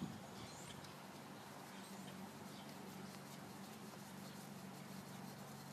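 Faint rubbing, squeaks and light clicks as a gloved hand turns a new spin-on oil filter onto its mount, over a steady low hum.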